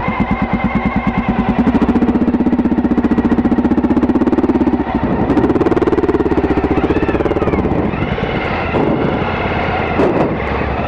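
Motorcycle engine running close by with a fast, even pulse. Its note steps up about halfway through and drops back a couple of seconds later.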